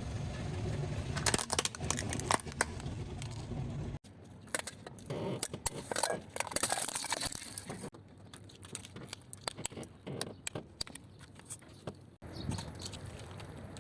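A car tyre rolling over and crushing soft objects: dense crackling and crunching over a low rumble of the car. The sound changes abruptly at a few hard cuts.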